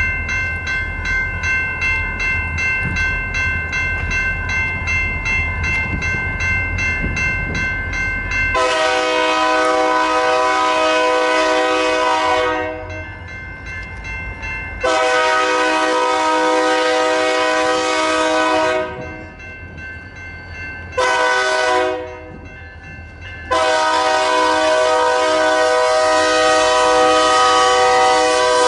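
Railroad crossing bell ringing steadily. About eight seconds in, a BNSF SD40-2 diesel locomotive's air horn sounds the grade-crossing signal: two long blasts, a short one, then a final long blast held as the locomotive reaches the crossing.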